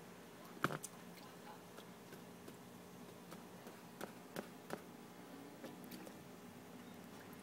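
Mostly quiet, with a few scattered light taps and small splashes from a toddler's hands and toys in the shallow water of an inflatable pool; the sharpest tap comes just under a second in, and three more follow around four to five seconds in.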